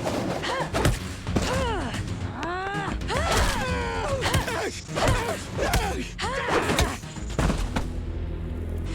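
Cartoon fight sound effects: gunfire and thuds in quick succession, mixed with shrill cries that rise and fall in pitch.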